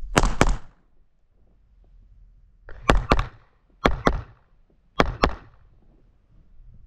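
Laugo Arms Alien 9mm pistol fired in four double taps: each pair is two shots about a quarter-second apart. One pair comes at the start, then after a pause of about two seconds three more pairs follow about a second apart.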